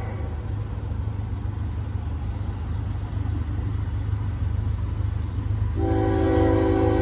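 Diesel freight locomotive's air horn sounding a chord of several steady tones. It cuts off at the start, leaving a low steady rumble, then sounds again about six seconds in and is held.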